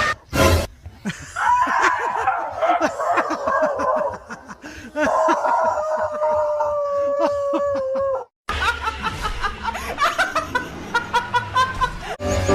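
A person laughing in rapid, choppy pulses, with a long held high-pitched voice sound in the middle. The sound cuts off abruptly after about eight seconds, and more laughter follows.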